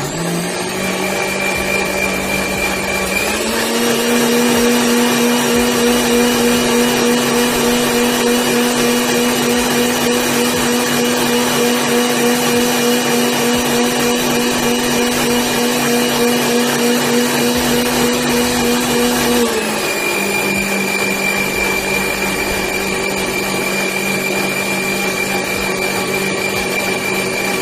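Electric mixer grinder with a stainless steel jar blending curd, sugar and milk into lassi. The motor whines up to speed, steps up to a higher pitch about three seconds in, drops back to a lower speed about twenty seconds in, and winds down as it is switched off near the end.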